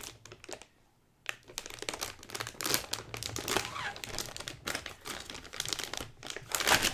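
Anti-static plastic bag crinkling as a graphics card is worked out of it: a few light clicks, a short pause, then continuous crinkling with its loudest burst near the end.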